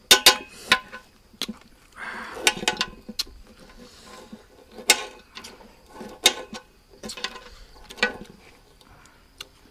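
Knives cutting limes on a wooden board: irregular sharp taps and clicks of the blades, a few of them loud, with a brief rustling stretch about two seconds in.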